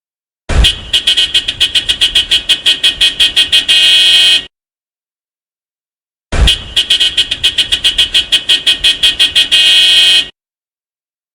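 Mitsubishi Pajero's car horn beeped in a fast run of short toots, about seven a second, ending in one long blast; the same pattern comes twice.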